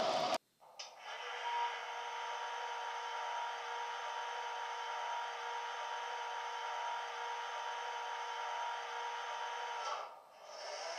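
Model A Class diesel locomotive's Loksound 5 sound decoder playing a steady engine sound through its tablet speaker: an even, whining hum with two steady tones and no bass. It dips briefly near the end. A louder sound from the layout cuts off abruptly right at the start.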